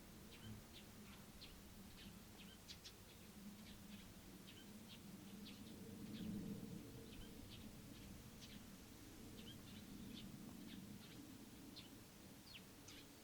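Small birds chirping faintly by a river, short high chirps about three a second, over a faint low steady rumble.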